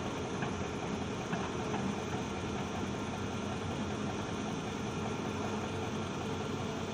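Heavy diesel engine idling steadily, with a few faint ticks.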